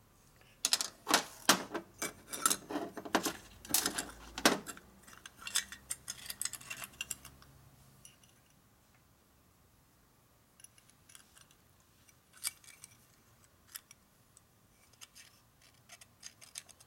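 Small metal carburetor parts clicking and clinking as they are handled and fitted together on a steel workbench: a quick run of sharp taps for the first several seconds, a short lull, then scattered clicks near the end.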